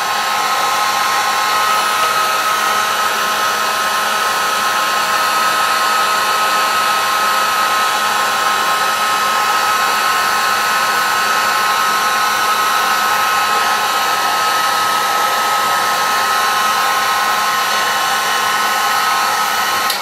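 Electric heat gun running on its lowest setting, shrinking heat-shrink tubing onto a crimped cable lug: a steady blowing rush with a steady whine. It cuts off right at the end.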